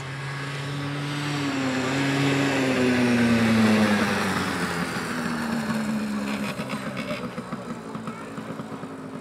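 Small youth ATV engine running as the quad drives up, passes close and moves away. It gets louder to a peak about three to four seconds in, then fades with a slight drop in pitch.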